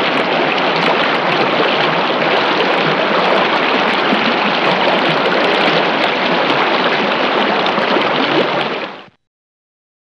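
Running water, a steady dense rush with fine splashing texture, fading out near the end.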